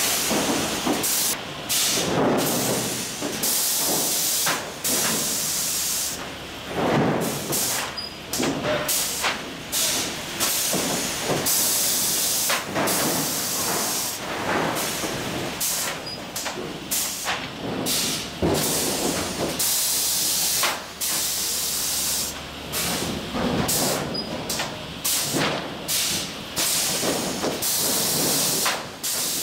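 Automatic 12-foot lumber stacker running: air hisses again and again from its pneumatic cylinders as they cycle, over the knocks and clatter of boards and chain conveyors.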